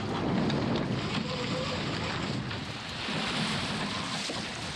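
Wind buffeting the microphone with a deep rumble, over water rushing and splashing along the hull of a small plywood sailing skiff under way in choppy water.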